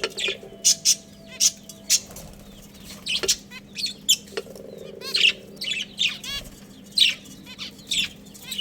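Budgerigars chirping and chattering: a rapid, irregular string of short, sharp calls that bend up and down in pitch, over a faint steady hum.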